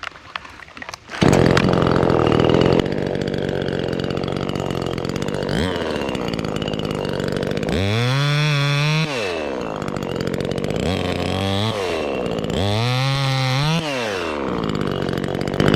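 Chainsaw comes on suddenly about a second in and runs steadily while cutting a tulip tree limb, its engine pitch rising and falling back twice.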